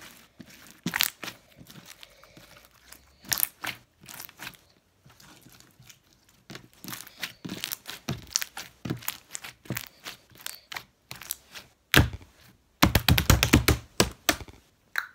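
Slime being squished and poked, making irregular crackling and popping clicks, with a dense run of loud pops near the end.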